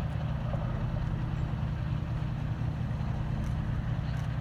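A steady low droning hum with no break or change, in a lull between radio calls.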